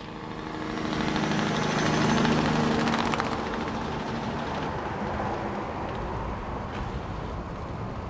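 A vehicle engine running steadily, growing louder to a peak about two seconds in and then easing off as it moves away.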